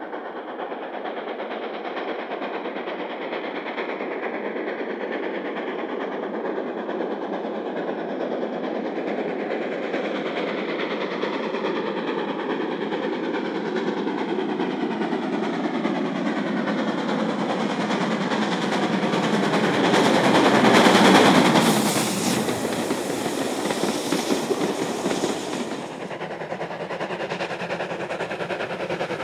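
Preserved steam locomotives working trains: a blue-liveried GWR King class 4-6-0 approaches with its exhaust beats and wheels clattering on the rails, growing louder and passing at its loudest about two-thirds of the way in. Near the end a second steam locomotive, a Caledonian 0-6-0, is heard working hard.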